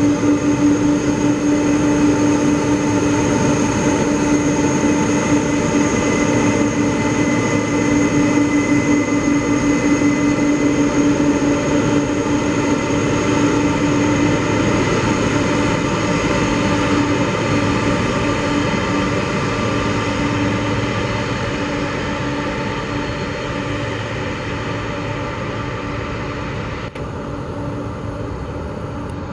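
Boeing 747-400F's four jet engines after landing: a steady rumble with held whining tones, slowly fading as the freighter rolls away along the runway.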